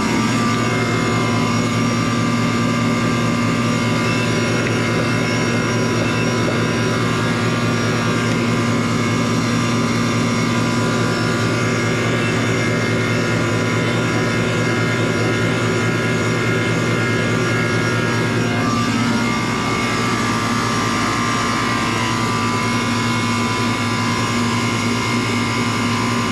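1994 Goodman 5-ton heat pump's outdoor unit running: a steady compressor hum with the condenser fan's noise over it. The compressor, which had been condemned as shorted, is running normally.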